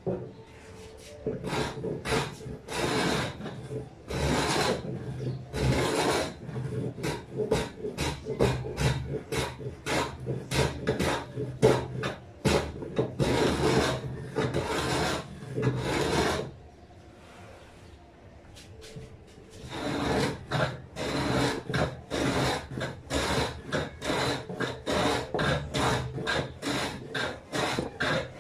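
Hand plane being pushed along the edge of a wooden speaker box in repeated scraping strokes, taking off the sharp corner. The strokes stop for a few seconds past the middle, then come back shorter and quicker.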